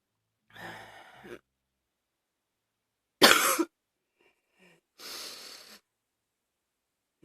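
A woman coughing: one loud, short cough just after three seconds in, with quieter, breathy sounds about half a second in and again around five seconds.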